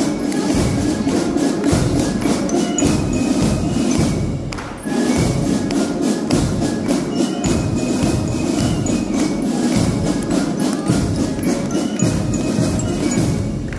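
Marching band playing a march with a steady drum beat, the music briefly dropping off about four and a half seconds in before carrying on.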